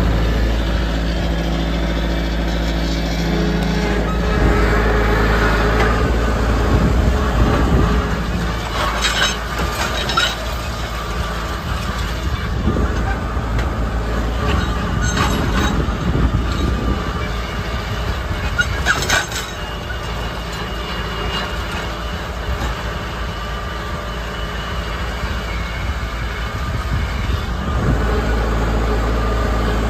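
Hydrostatic tractor engine running steadily at about 1650 RPM while pulling a 1st Products ND-60T MULTI-drill, with the drill rattling and clanking over rough ground. A few sharper clanks stand out, several seconds apart.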